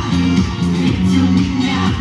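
Music with a steady beat and held bass notes, played through outdoor stage loudspeakers.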